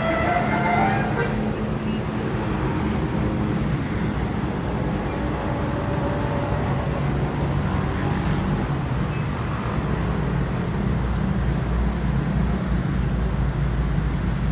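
A bus engine running with a steady low hum. In the first second the last notes of a multi-tone telolet 'basuri' musical horn tune fade out.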